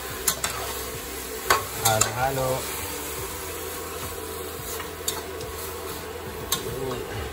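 Pork knuckle pieces sizzling as they are sautéed and stirred in a pot, with a few sharp taps and scrapes of the stirring utensil against the pot.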